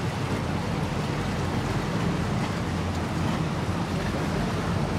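Steady outdoor wind and water noise, heaviest in a low rumble, with wind buffeting the microphone and no distinct events.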